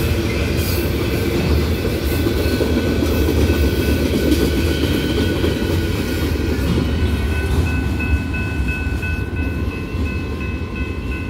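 Freight cars of a loaded manifest train rolling past with a steady rumble of wheels on rail as the last boxcar goes by. From about seven seconds in, a high ringing repeats a couple of times a second over it: the grade-crossing bell.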